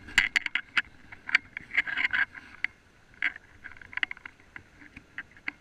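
Irregular sharp clicks and scrapes of handling and movement close to a body-worn camera, densest in the first two seconds and thinning to a few scattered ticks.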